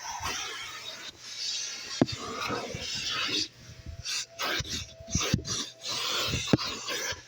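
Vacmaster wet/dry shop vac sucking and rubbing as its detailing nozzle is worked over the car's interior surfaces. The rushing air noise keeps cutting out and changing as the nozzle presses against the surface, with a faint whistle in the middle. The tool knocks against the interior now and then, loudest about 2 s in and again near the end.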